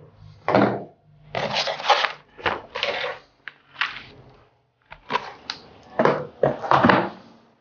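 Cardboard box and packaging being handled: a string of irregular rustles, scrapes and flap rubs of cardboard, with short pauses between them.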